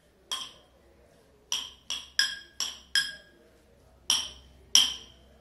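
A spoon clinking against a glass bowl while stirring a sprout mixture: about eight short ringing clinks at uneven intervals.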